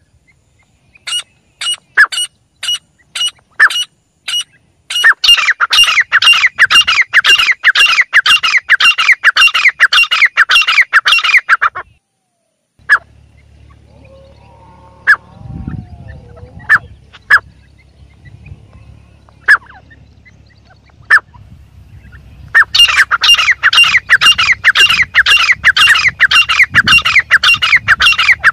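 Teetar (francolin, the South Asian partridge) calling with sharp, shrill notes. Single calls about half a second apart build into a rapid run of several notes a second. After a break with only a few scattered calls, the rapid run starts again near the end.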